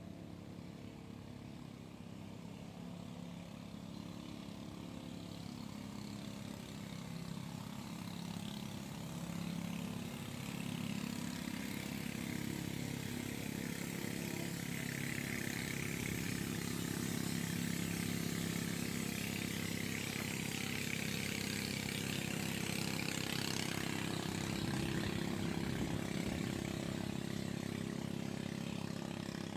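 A motor engine running steadily, growing louder over the first half and then holding at a constant pitch.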